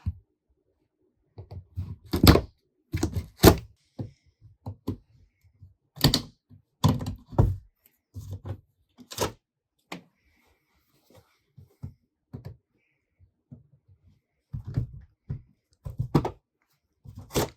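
Cardboard packing pieces and box parts being pulled out and set down: a run of irregular thumps and knocks, a few of them loud, with short quiet gaps.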